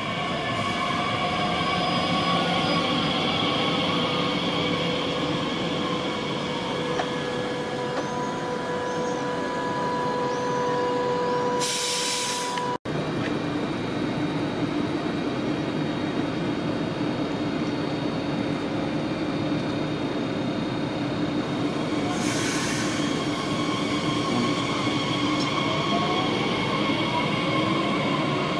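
DB class 442 (Bombardier Talent 2) electric multiple units running through a station: the first draws in with its traction-motor whine falling. After an abrupt cut about 13 seconds in, a second one pulls away with the whine rising near the end. A brief hiss sounds twice, about 12 and 22 seconds in.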